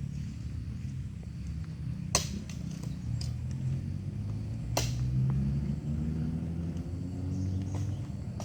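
Bulldozer diesel engine running with a low rumble whose pitch drifts up and down. Two sharp metallic knocks come about two seconds in and again about five seconds in.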